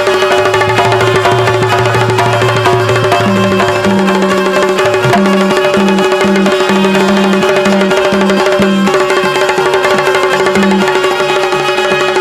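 Instrumental passage of Bundeli Rai folk music: a fast hand-drum rhythm over a steady held drone, with low melody notes that change pattern about four seconds in. No singing.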